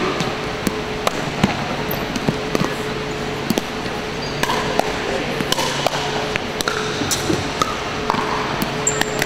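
Pickleball paddles striking a hard plastic ball in a fast doubles rally, with the ball bouncing on a wooden floor: a string of sharp, irregularly spaced pops over a steady low hum.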